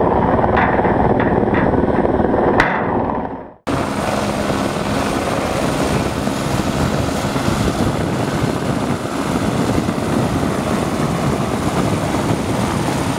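Helicopter hovering close overhead, a steady rotor and engine noise, with a few sharp clicks in the first three seconds. The sound fades away about three and a half seconds in, then comes straight back as steady helicopter noise.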